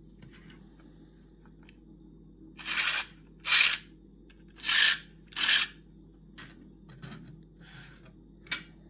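The plastic link tracks of a 3D-printed model tank rasping as they are worked by hand. There are four short scrapes close together, followed by a few light plastic clicks near the end.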